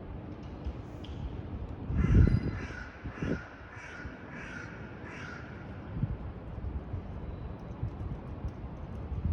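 A crow cawing about six times in a quick, even series, over steady wind noise. Low gusts of wind buffet the microphone, the loudest coinciding with the first caw.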